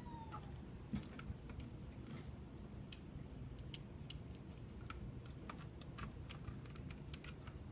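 Scattered light clicks and taps of small plastic and metal parts being handled while a Kronos 4500 time clock is put together.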